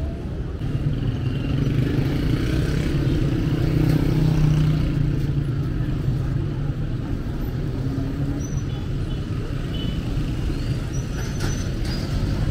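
City street traffic: a steady low rumble of passing cars and motorbikes, swelling a little in the first few seconds.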